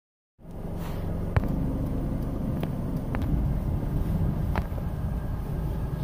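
Car engine and road rumble heard from inside the cabin while driving, a steady low drone with a few scattered light clicks.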